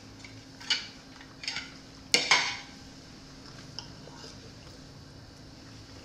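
Fork clinking and scraping against a plate: a few short clinks in the first couple of seconds, the sharpest about two seconds in. A faint steady hum runs underneath.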